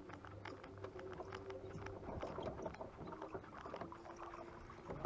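Bow-mounted electric trolling motor humming steadily, its pitch shifting a few times as it is steered, with many light clicks and taps mixed in.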